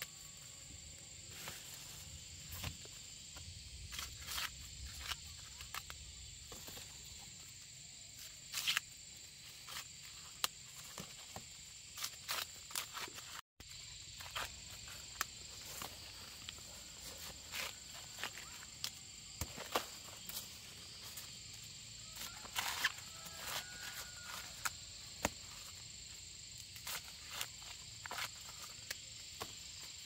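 Steady high-pitched insect drone, with scattered short rustles and clicks of someone moving and handling things close by.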